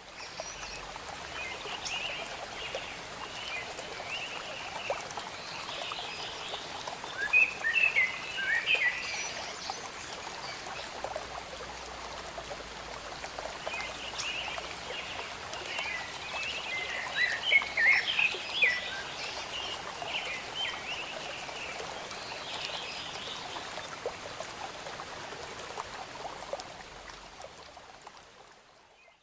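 Waterfall: a steady rush of falling water, with birds chirping over it in two busy spells, about a quarter and about two-thirds of the way through. The water fades out at the end.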